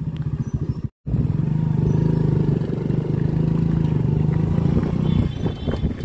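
Motorcycle engine running steadily with an even low hum; the sound cuts out for a split second about a second in.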